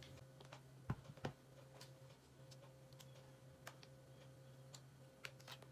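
Near silence with a few faint clicks and taps from hands handling a sneaker and pressing a sticker onto it, two slightly louder knocks about a second in, over a faint steady hum.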